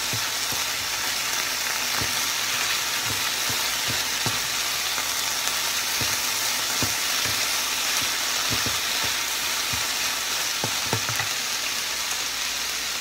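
Chicken, onion and green pepper sizzling in a hot frying pan, stirred with a black plastic slotted spatula that clicks and scrapes against the pan at irregular moments.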